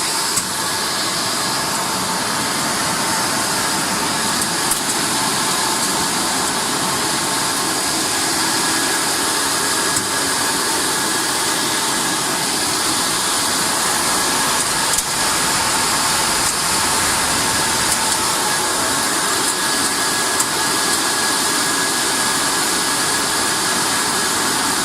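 Industrial air drying machine's blowers running steadily: an even rush of air with a faint steady whine in it.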